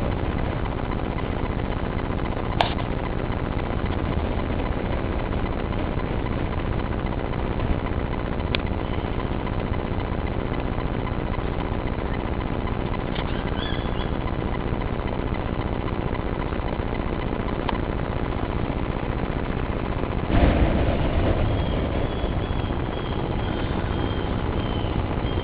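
Blower running steadily, forcing air into a buried furnace fire, with a few sharp pops and a louder rush about 20 seconds in.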